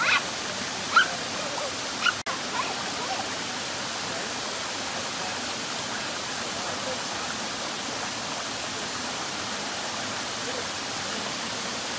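Steady rush of a small woodland waterfall and the rocky stream running below it.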